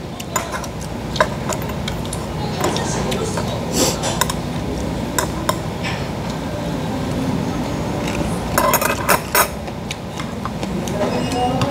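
Chopsticks and a spoon clinking against bowls and dishes: scattered light clicks, with a quick run of clinks about nine seconds in, over a steady low background hum.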